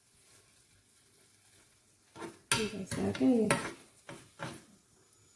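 Raisins being stirred in a small frying pan with a little oil. A utensil scrapes and knocks against the pan in a run of strokes starting about two seconds in, over the sizzle of frying.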